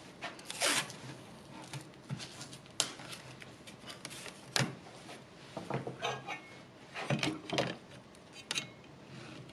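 Acrylic sheets and a wooden-stocked try square being handled and set down on a wooden workbench: scattered light clicks, taps and short scrapes.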